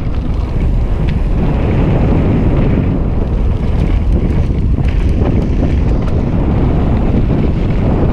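Wind buffeting the microphone: a loud, steady low rumble, with a few faint ticks scattered through it.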